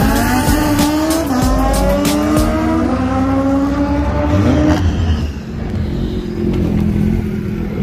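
Drag-racing car's engine under full throttle, its pitch climbing, dropping back and climbing again as it runs up through the gears. About five seconds in it gives way to a lower, steadier engine sound of cars waiting at the start line.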